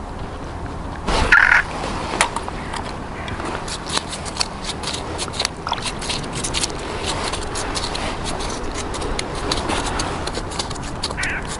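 Scattered small clicks and taps of a caught perch being handled and unhooked on the ice, with a louder short call-like sound about a second in.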